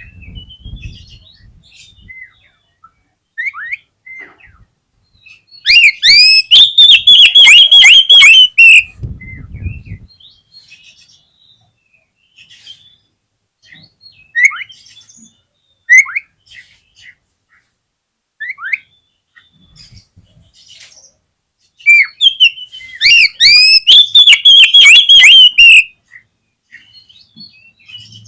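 Oriental magpie-robin singing. There are two loud bursts of rapid, repeated high notes, about six seconds in and again about twenty-two seconds in, with soft scattered whistles and chirps between them.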